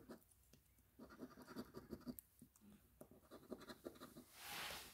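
A coin scraping the scratch-off coating from a lottery ticket: faint runs of quick rasping strokes, then a short breathy whoosh near the end.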